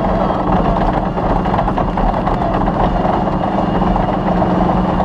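Off-road rally car's engine running at a steady pitch while it drives a special stage, with loud, rough driving noise.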